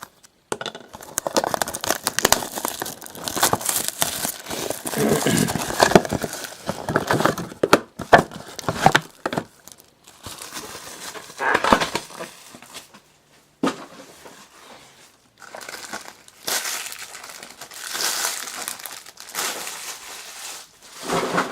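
Plastic wrapping on a sealed box of racing trading cards being torn open and crumpled, in irregular crinkling bursts with short pauses between them.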